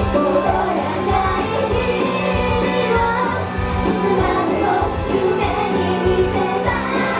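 Japanese idol pop song performed live: a singing voice over a full band-style backing with a steady drum beat and a held bass note.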